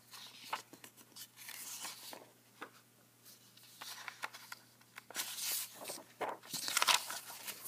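Sheets of paper being handled and slid across a desk: several brief rustles and soft taps as a page is lifted and moved aside.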